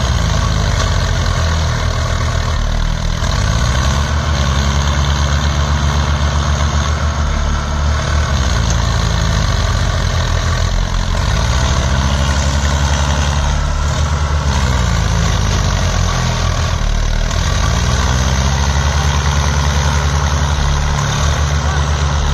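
Diesel engines of two farm tractors running together in the mud, steady, with the engine pitch swelling and dipping several times as they are revved.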